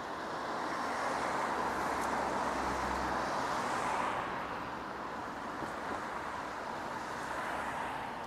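A car driving past on the street, its tyre and engine noise swelling and then fading after about four seconds.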